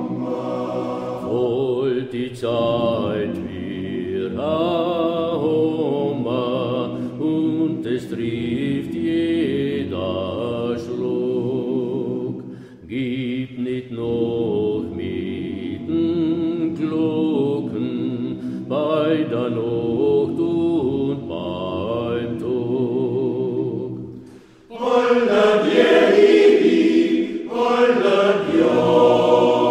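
Men's choir singing a song in parts, with a short break in the phrase about thirteen seconds in. About five seconds before the end it drops out briefly and comes back louder and brighter.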